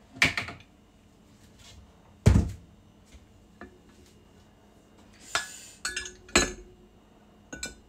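Dishes and kitchenware handled during washing-up: a clink at the start, a heavy thunk a little after two seconds, a short hiss and another thunk around five to six seconds in, and light clicks near the end.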